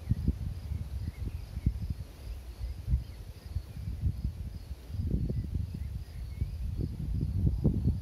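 Wind buffeting the microphone in low, uneven gusts that grow stronger about halfway through, with faint insect chirping repeating about twice a second high above it.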